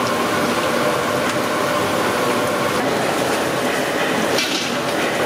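Battered fish pieces deep-frying in a large kadai of hot oil, the oil sizzling in a steady, dense hiss. There is a brief sharper noise about four and a half seconds in, as a spider skimmer lifts a load of fried pieces out.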